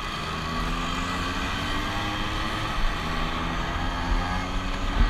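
Vespa scooter engines running steadily at riding speed, with wind rush on the microphone. The engine note rises a little about four seconds in.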